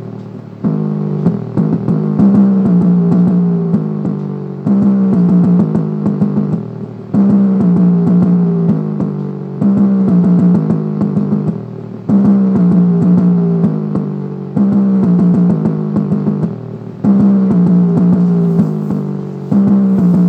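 Music played through the 3-inch subwoofer of an Intex IT-890U Mini 2.1 desktop speaker set, with the satellite speakers disconnected: a beat-driven track with a phrase repeating about every two and a half seconds, its bass sitting in the upper range with little deep low end.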